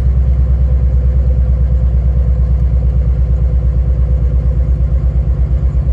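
Nissan 350Z's 3.5-litre V6 idling with a rough, evenly pulsing beat: a misfire, traced to cylinders 4, 5 and 6 not firing, with a disconnected ignition coil on cylinder 5 and swapped coil connectors on 4 and 6.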